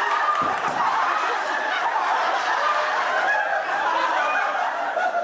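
A room full of young men laughing loudly together, a steady mix of overlapping laughter and chatter.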